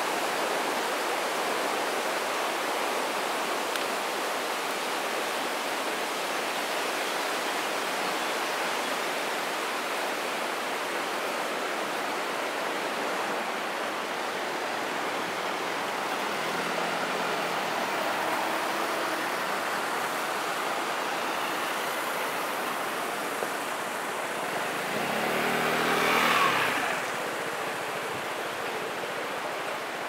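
Street traffic over a steady rushing background: a van's engine goes by a little past halfway, and a louder vehicle passes close and fades about 26 seconds in.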